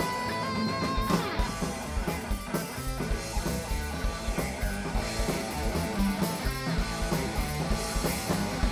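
Heavy metal band playing live: electric guitars, bass guitar and drum kit playing the song's closing bars, ending on a loud hit right at the end.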